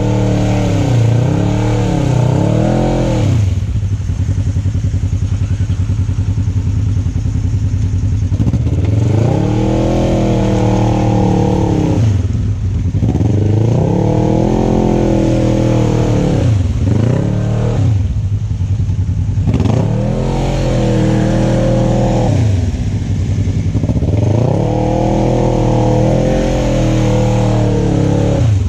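Off-road vehicle engine revving up and falling back again and again, about six times, each rev a rise and fall in pitch over a steady low hum.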